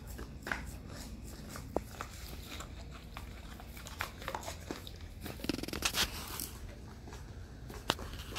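Dogs licking ice cream out of small plastic cups on a tile floor: wet licking with scattered sharp clicks and crinkles as tongue and teeth work against the plastic cups.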